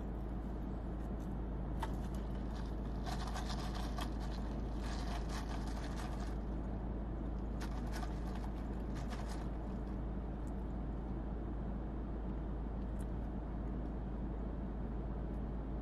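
Steady low hum inside a stationary car, with scattered small clicks and crackles over the first ten seconds or so from eating toast and sipping an iced drink through a straw.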